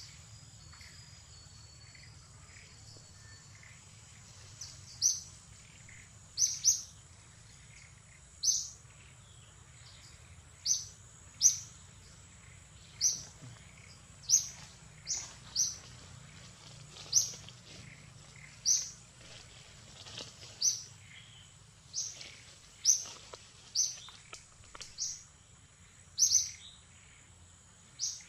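A bird giving short, high chirps over and over, about one every second or so, starting a few seconds in, over a low steady background hum.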